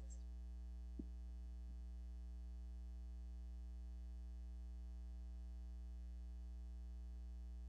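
Low, steady electrical hum, with one faint click about a second in.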